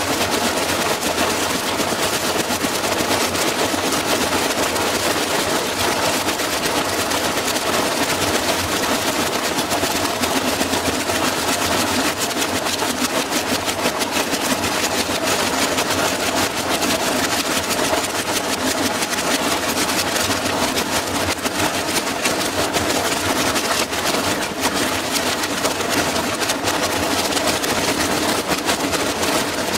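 Hotpoint front-loading washing machine in a violent spin, its cabinet shaking hard and rattling and banging in a dense, steady clatter over a running hum. The heavy shaking is the sign of a badly unbalanced drum.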